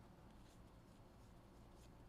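Near silence, with a couple of faint, soft ticks of trading cards being slid and flipped through by hand.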